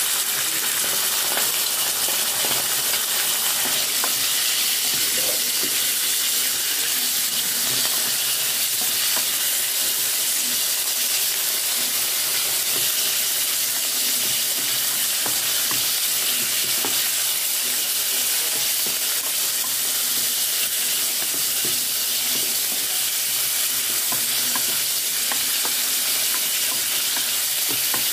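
Pork cubes sizzling steadily as they fry in oil in a non-stick electric cooker pot, with scattered small pops. A wooden spatula stirs them near the end.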